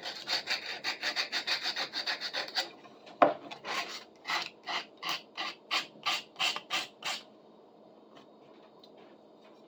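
Sandpaper rubbed back and forth by hand over a wooden saw handle: fast scratchy strokes, then a single knock about three seconds in, then slower strokes, about three a second, stopping about seven seconds in.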